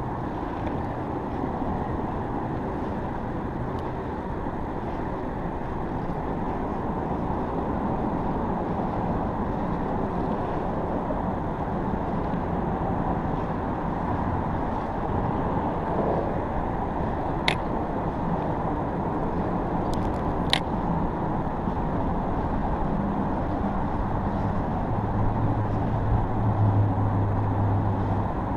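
Steady rumble of road traffic crossing the bridge overhead, with a low hum swelling near the end and a few sharp clicks around the middle.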